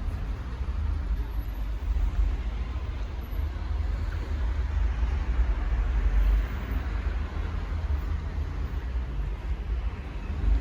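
Steady low rumble of a motor vehicle, with road or traffic noise over it.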